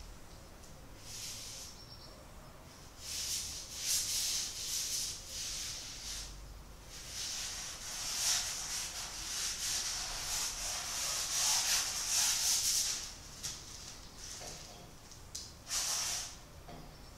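Paintbrush stroking paint onto a large canvas, in runs of brush strokes: a short one about a second in, then almost continuous strokes from about three seconds in to about thirteen, and one more stroke near the end.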